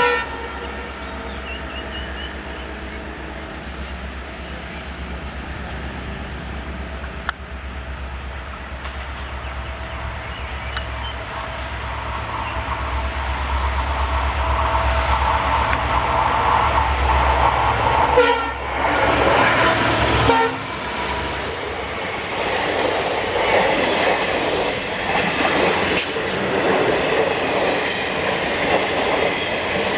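A train passing: a horn blast cuts off right at the start, the locomotive's low engine drone builds and then drops away about 20 seconds in, and the wheels of the coaches rumble and clatter over the rails, growing louder through the second half.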